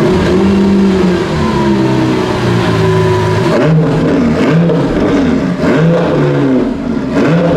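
Lamborghini Sián FKP37's 6.5-litre V12 revving through its exhausts. It is held at a raised rev early on, then blipped in quick rises and falls about once a second.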